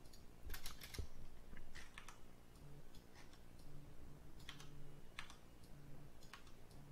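Computer keyboard keys and mouse buttons clicking at irregular intervals, a scattering of single clicks, over a faint low hum.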